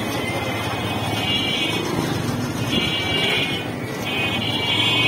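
A motorcycle ridden slowly through town-street traffic, its engine and road noise steady underneath. A high-pitched ringing signal sounds three times: first for about two seconds, then twice more briefly.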